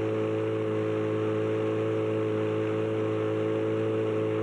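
Boat's outboard motor running steadily underway: a constant drone with a steady hum that holds one pitch throughout.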